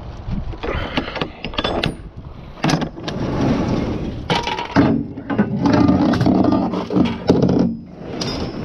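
Hard objects clattering, knocking and clinking in quick, irregular strikes, busiest from about four to seven and a half seconds in.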